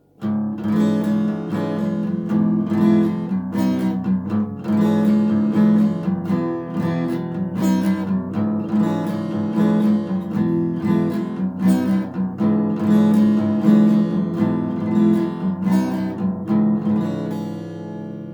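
Fender FA-125 laminate-top dreadnought acoustic guitar playing a run of strummed chords, with the last chord left ringing out near the end.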